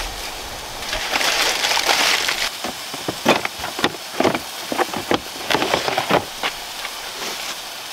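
Aluminium foil crinkling as it is crumpled, then a series of clunks and knocks as a plastic storage bin is slid out and pushed back in.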